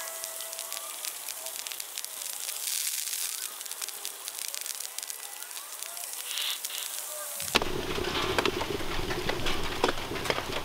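Small kindling fire crackling in the feed opening of a concrete-and-perlite rocket stove, with many fine pops over a light hiss. About seven seconds in, the sound turns suddenly to a louder, fuller crackle with sharper pops.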